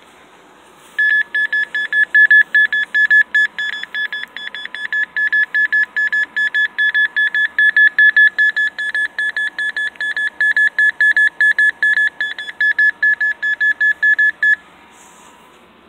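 Rapid electronic beeping from an EMF detector app on a Nexus 7 tablet's speaker: the same high beep repeated several times a second. It starts about a second in and stops abruptly near the end, growing louder and softer as it goes.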